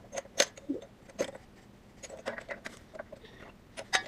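Scattered sharp clicks and knocks of metal tools and engine parts being handled during the teardown of a small single-cylinder engine, with the loudest click about half a second in.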